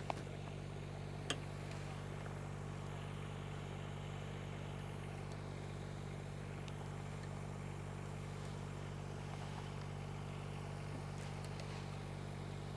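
An engine idling steadily with a low, even hum, and a single sharp click about a second in.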